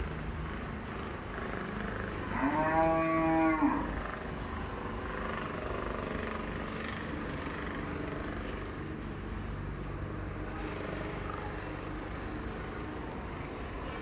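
A cow moos once, a single call about a second and a half long that rises and then falls slightly in pitch, a couple of seconds in.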